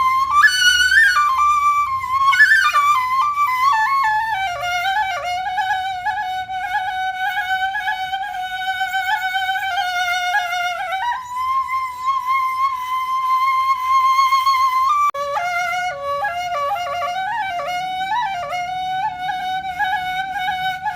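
Background music: a solo flute melody with long, wavering held notes and quick ornamented runs, the runs near the start and again about fifteen seconds in.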